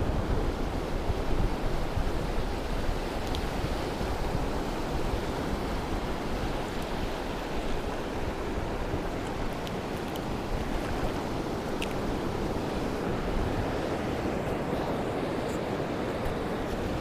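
Steady wash of small waves breaking on a shallow shore, mixed with wind noise on the microphone.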